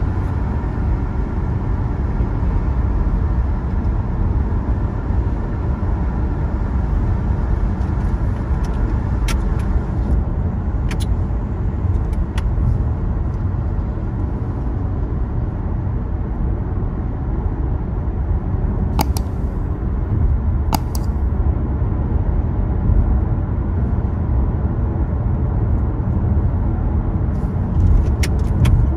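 Car driving along the road: a steady low rumble of tyres and engine, with a few short sharp clicks or knocks now and then.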